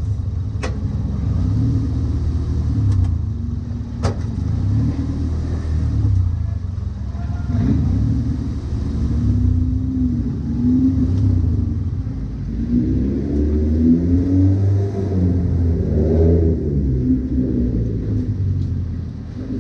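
Race car engine running steadily at fairly low revs, with the pitch rising and falling between about twelve and seventeen seconds in as it accelerates; a couple of sharp clicks in the first few seconds.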